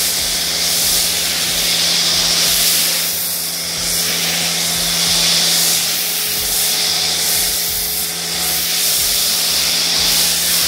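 Pressure washer spraying car shampoo through a BEARFORCE foam cannon: a steady, loud hiss of foam spray with a low hum underneath.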